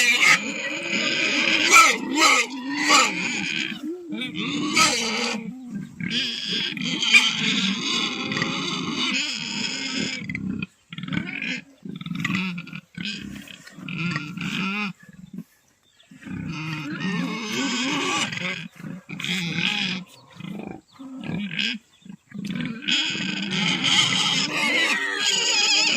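Pigs squealing and grunting at feeding time: loud, shrill squeals over lower grunts, in several long stretches broken by abrupt pauses.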